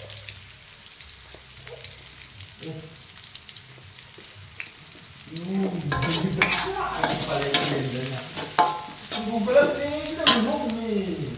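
Metal spatula stirring and scraping in a steel wok while petai (stink beans), chillies and shallots sizzle in oil. It is quiet for about the first five seconds, then the scraping gets louder, with wavering ringing tones from the metal on metal.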